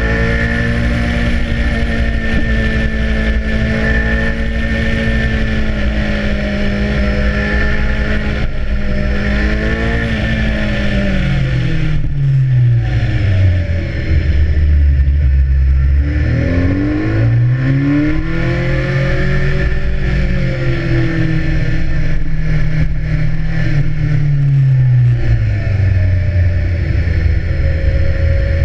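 BMW S1000R's inline-four engine heard from onboard: it pulls at steady revs, then the revs fall away low as the bike slows for a tight hairpin about halfway through. It then rises again as the bike accelerates out, with a shorter dip and climb near the end.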